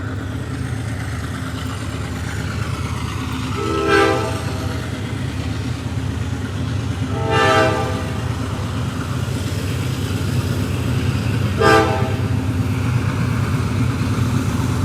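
Train rolling by with a steady low rumble, its horn sounding three short blasts about four seconds apart, the last one the shortest.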